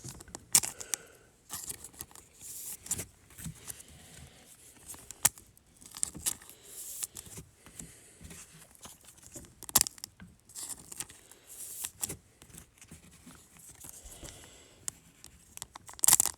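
A foil trading card pack being torn open and its wrapper crinkled, with cards being handled: irregular sharp crackles and rustles.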